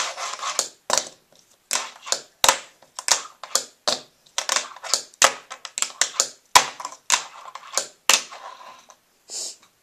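Fingerboard being popped and landed with the fingers: an irregular run of sharp wooden clacks, some followed by short rolling scrapes of the wheels.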